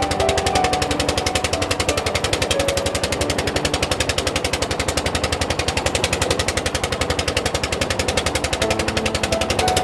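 Fishing boat's engine chugging with a fast, even beat.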